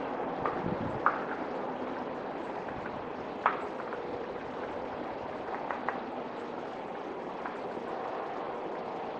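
Woodpecker pecking at a tree: a handful of sharp, irregular taps, the loudest about a second and three and a half seconds in, over a steady background hiss.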